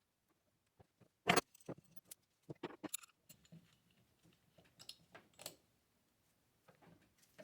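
Scattered light clicks, clinks and knocks of small hard objects being handled and set down, the sharpest about a second in, then a quick cluster and softer handling noise.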